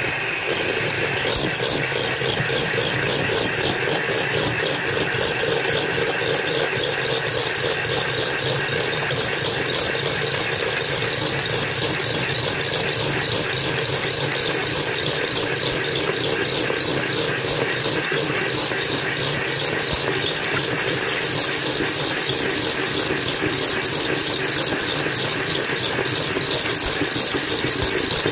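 Electric hand mixer running at a steady speed, its wire beaters whipping egg whites into meringue in a stainless steel bowl.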